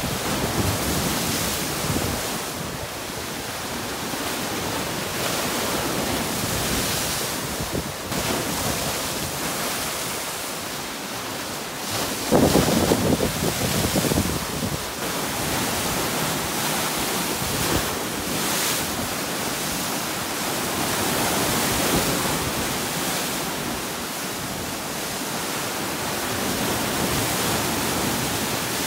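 Storm waves on Lake Superior crashing against and washing over a sandstone rock shoreline: a continuous rush of surf and spray, with a heavier crash about twelve seconds in.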